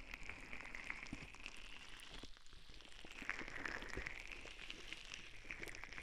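Relaxation-ball ear massage on a binaural ASMR microphone: close crackly rubbing and rolling friction with many small clicks over a hiss that slowly dips lower in pitch and rises again.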